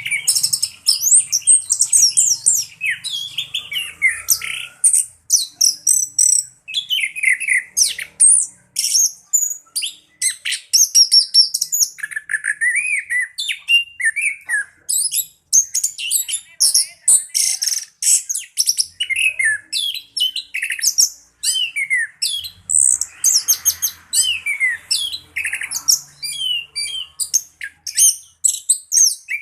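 Orange-headed thrush singing a fast, unbroken rolling song of varied high whistles, trills and chattering notes with no pauses, the 'ngerol' song that keepers prize.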